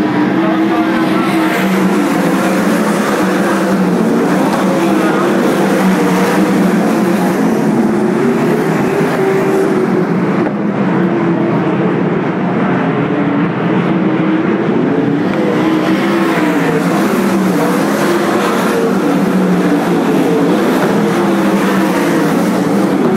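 A field of winged sprint cars racing on a dirt oval, their V8 engines loud and continuous, the pitch rising and falling as the cars power through the corners.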